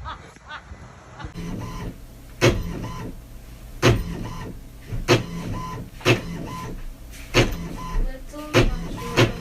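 A series of sharp mechanical clacks, roughly one a second, over a steady low hum.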